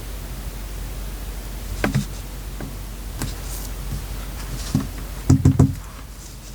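Journal decorating on a desk: paper and craft materials handled with a soft rustle over a steady hiss, a few light taps and clicks, then three quick knocks about five seconds in.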